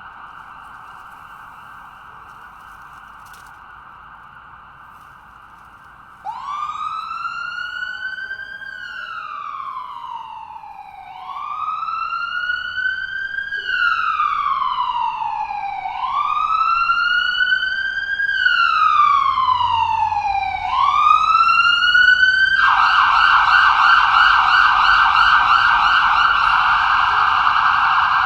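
Ambulance electronic siren. It starts faint on a rapid yelp, then about six seconds in switches to a slow wail that rises and falls about every five seconds. After three wail cycles it switches back to a rapid yelp near the end. It grows steadily louder throughout.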